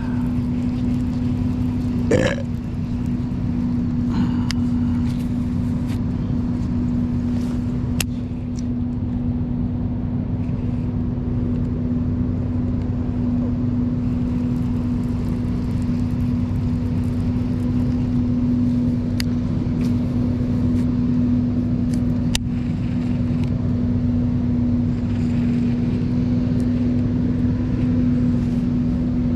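A steady mechanical hum holding one even pitch, over a low rumble, with a short louder sound about two seconds in and a few faint clicks later on.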